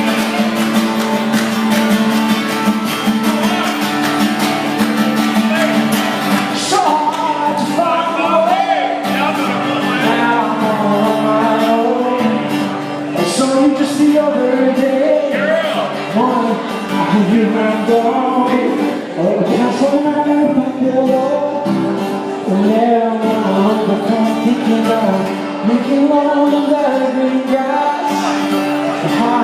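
Live band playing, with guitar strumming and male voices singing. The first few seconds are instrumental, and the sung melody comes in about seven seconds in.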